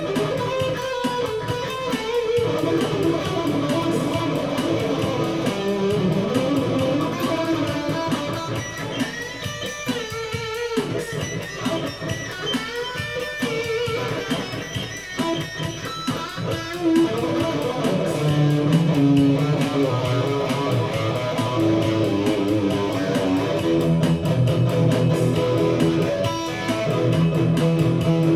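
Electric guitar playing an instrumental passage of a rock song, picked lines and strummed chords, over a steady drum-machine beat.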